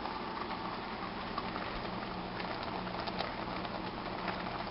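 Pot of chicken chili simmering on high heat, with frequent small irregular pops over a steady low hum.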